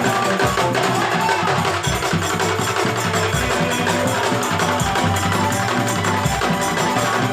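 Music with busy percussion over a held bass line.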